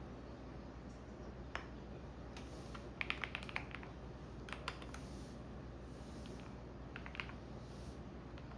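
Typing on a computer keyboard: scattered keystrokes, with a quick run of about half a dozen keys about three seconds in and a few more later. Underneath is the steady low hum of a washing machine running.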